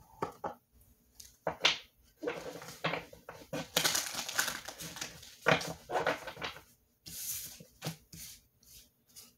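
A tarot deck being shuffled by hand: irregular flicks and slaps of card stock, with a denser run of shuffling in the middle and a shorter one near the end.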